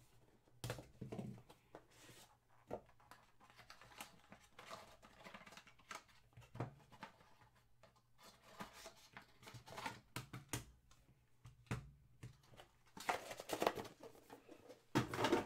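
A cardboard trading-card box being opened and handled by hand: the tape seal torn, flaps and inner cardboard rustling and tapping as a card is lifted out. There are louder knocks and rustles near the end.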